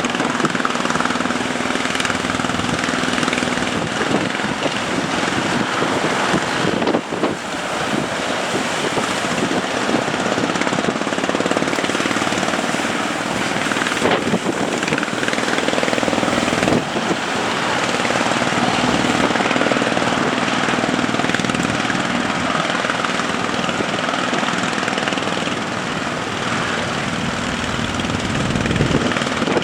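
Fishing boat's engine running steadily under a loud rush of wind and water as the boat pushes through heavy waves.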